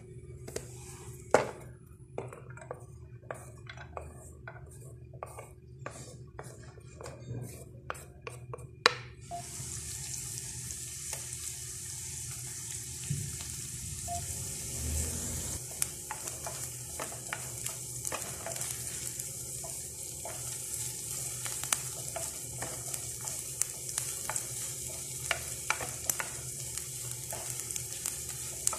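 Sliced onions frying in hot oil in a non-stick pan: a steady sizzle that starts suddenly about nine seconds in, with the scrape and tap of a wooden spatula stirring them. Before that, scattered sharp pops and clicks.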